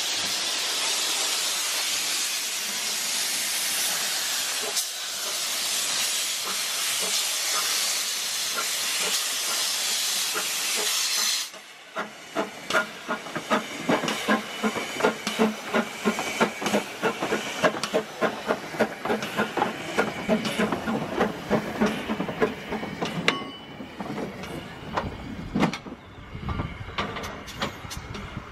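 A loud steady hiss for about the first eleven seconds, which stops abruptly. Then a small narrow-gauge steam locomotive chuffing as it pulls along the track, with an even beat of about two exhaust puffs a second that grows weaker near the end.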